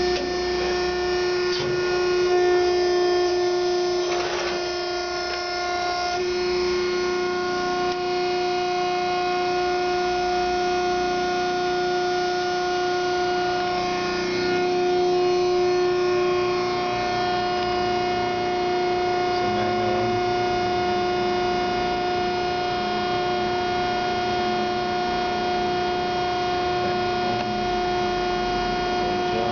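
Hydraulic pump unit of a 1993 Wysong 100-ton hydraulic press brake running under power, giving a steady whine.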